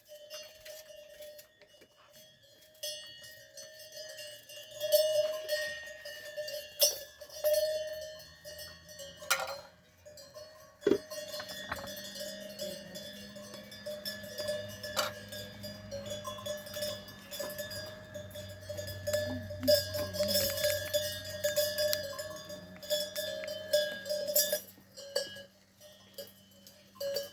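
Metal bells on livestock clanking and ringing continuously, among many small knocks.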